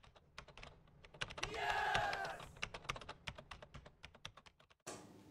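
Keyboard-typing sound effect for an animated title: a quick, irregular run of key clicks, with a louder pitched tone swelling and fading for about a second in the middle. The clicks stop shortly before the end, giving way to faint room hum.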